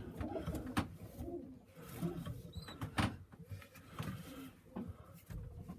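Homing pigeons cooing, repeated low rolling coos, with two sharp clicks, one about a second in and one near the middle.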